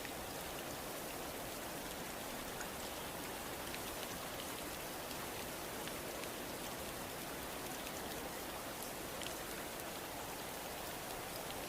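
Steady rain falling on a surface, an even hiss with individual drops ticking through it.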